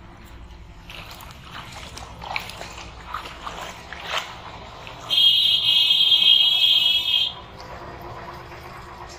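Water splashing and dripping as a wet cast net is gathered and dipped in shallow pond water. About five seconds in, a loud, steady, high-pitched buzzing tone starts, lasts about two seconds and cuts off suddenly.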